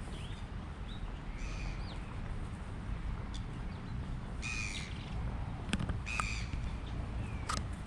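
Birds calling outdoors: two loud, harsh, crow-like calls about a second and a half apart midway, with fainter short chirps earlier, over a steady low rumble.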